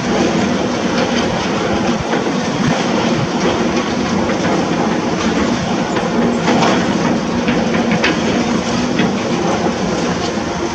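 Heavy construction machinery at work: a diesel engine running steadily, with scattered clanks and knocks.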